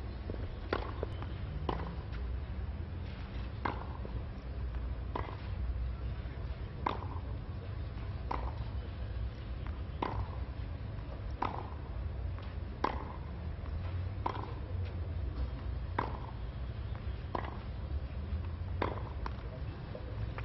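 Tennis rally: the ball struck back and forth by rackets, a sharp pock about every second and a half, over a steady low hum.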